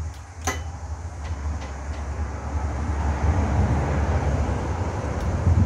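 Vintage Associated Chore Boy single-cylinder hit-and-miss engine running with a low, steady throb that grows louder in the second half. A sharp metallic clonk comes about half a second in, with a few lighter clicks after, from the cam and exhaust valve rod that are being adjusted to quiet the clonking in the miss cycle.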